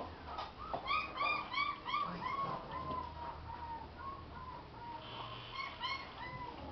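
Alaskan Malamute puppy whimpering: a run of short, high whines, about four a second, going on more softly to near the end.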